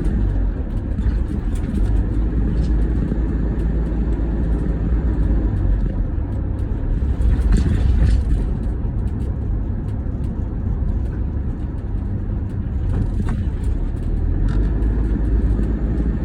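Toyota HiAce KDH200 van driving, heard from inside the cabin: a steady low rumble of road and diesel engine noise, with no rhythmic grinding audible, on a road test after the rear hub and hub bearing have been replaced.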